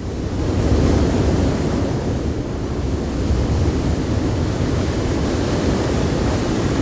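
Steady rushing noise of storm wind and water, heavy in the low end, with wind buffeting the microphone; it swells over the first second, then holds.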